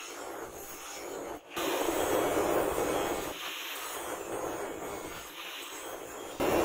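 Electric angle grinder with a flap disc grinding the steel edge of a rebar knife blade, a steady abrasive grinding noise that gets louder about a second and a half in.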